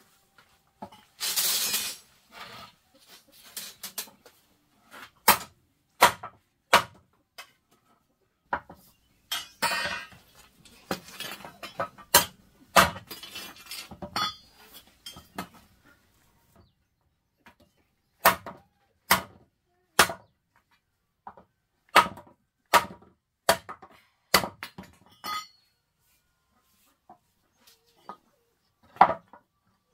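A series of sharp clinks and knocks of hard objects being struck, about one a second for a stretch later on, with a longer scraping rush about two seconds in and another around ten seconds in.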